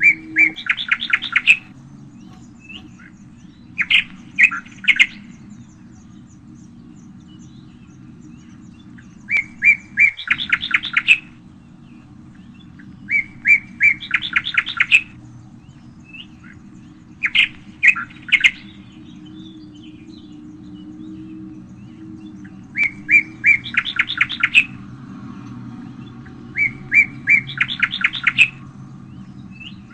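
A songbird singing the same short phrase over and over, about every three to four seconds: a few clear notes, then a fast trill. A steady low hum runs underneath.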